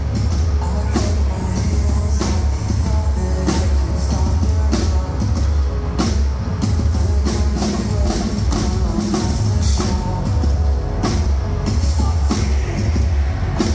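Metalcore band playing live and loud: a drum kit with frequent cymbal crashes pounding over heavy bass and guitars.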